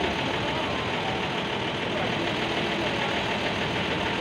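Truck engine idling steadily, a constant low rumble with no revving.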